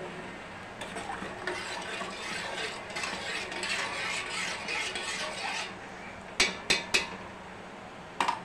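A spoon stirring sugar into water in a stainless steel pot, scraping and rattling against the pot for about five seconds, followed by three sharp metallic clicks about six and a half seconds in and a couple more near the end.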